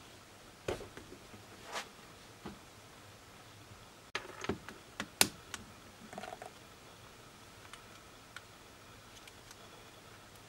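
Plastic case of a Canon LP-E6-type camera battery being pried open with a small hand tool: scattered sharp clicks and small cracks of plastic and tool, with handling noise. The loudest click comes about five seconds in.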